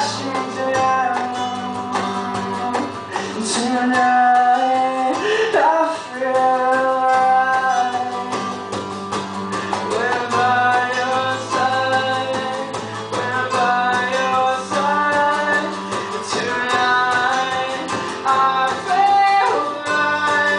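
Live acoustic song: acoustic guitar playing under a sung melody line.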